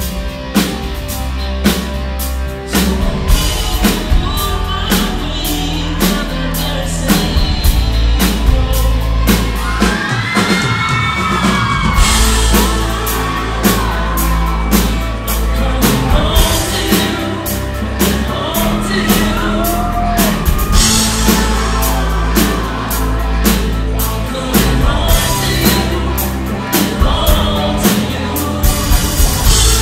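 Live rock band playing: sung lead vocals over electric guitars, bass and a steady drum beat, loud and recorded from within the audience.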